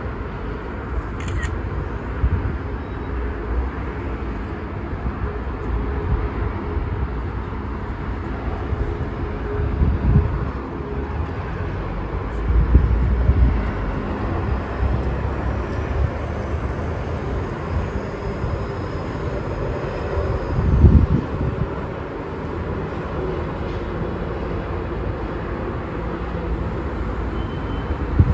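Wind buffeting the microphone over a steady low rush of city traffic, with three stronger low surges about ten, thirteen and twenty-one seconds in.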